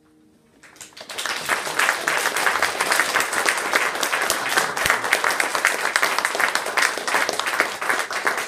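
The last piano chord fades out, then a small audience breaks into applause about a second in, dense and steady.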